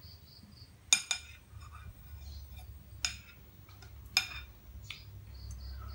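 Metal spoon clinking against a serving bowl and plate while food is scooped: a few sharp clinks spread a second or so apart.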